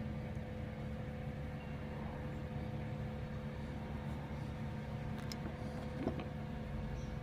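A steady low mechanical hum, like a running engine, with a few faint clicks from small parts being handled.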